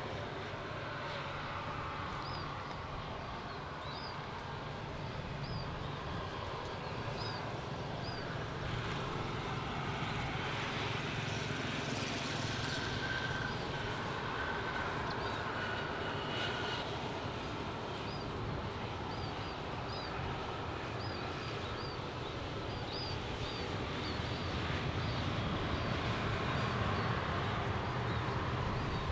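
Jet engine noise from an Airbus A330-300, a steady rumble that grows somewhat louder in the last few seconds.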